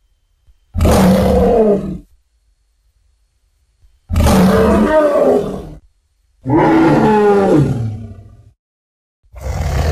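A series of loud, animal-like roars, each lasting one to two seconds and separated by short silences. Three full roars are followed by a fourth that begins near the end, and the third one slides down in pitch.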